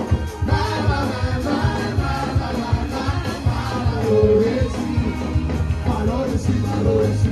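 Gospel praise music with voices singing a melody over a steady bass line and a regular drum beat.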